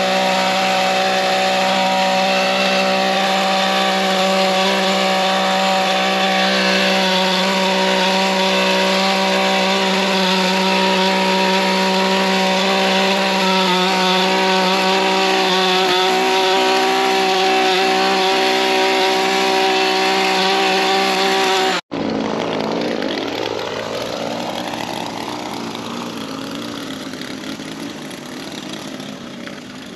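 Small two-stroke engine of a gas lawn edger running steadily at high speed as it cuts the edge. About two-thirds of the way through it breaks off abruptly and returns quieter, its pitch dipping and then climbing again.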